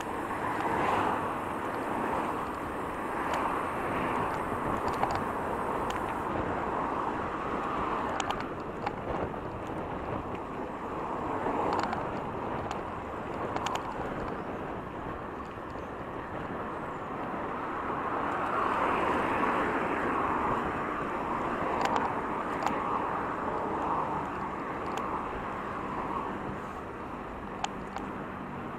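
Road traffic: cars passing one after another, their tyre and engine noise rising and fading every few seconds, with a few sharp clicks.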